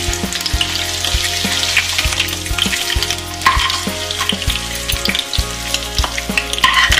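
Paneer cubes sizzling in hot mustard oil in a kadhai while a steel spatula scoops them out, with scattered clicks and knocks of the spatula against the pan and a steel plate.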